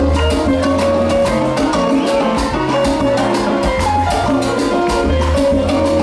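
Live salsa band playing an instrumental passage: an electric bass line under keyboard and percussion keeping a steady beat, with long held notes over the top.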